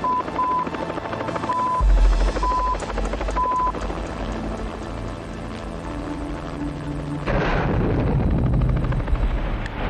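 Kamov Ka-25 helicopter in flight, its rotors and twin turboshaft engines running with a rapid rotor beat. A series of short high beeps sounds in the first few seconds, and the helicopter noise grows louder and fuller about seven seconds in.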